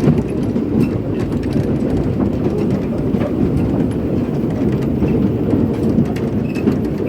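Steam-hauled heritage train running along the track: a steady low rumble of wheels on rail, with faint scattered clicks.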